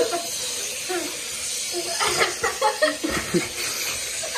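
A person's indistinct pained voice sounds, short and broken, over a steady hiss, from someone suffering the burn of an extremely hot chili chip.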